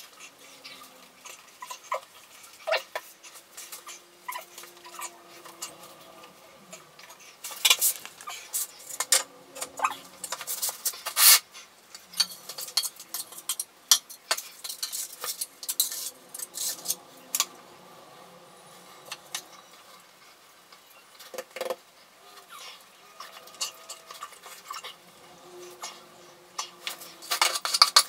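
Metal tiling trowel scraping and clinking against a pot of wall tile adhesive and against the tiles, in irregular runs of scrapes and sharp clicks that are busiest in the middle, ease off for a few seconds, then pick up again near the end.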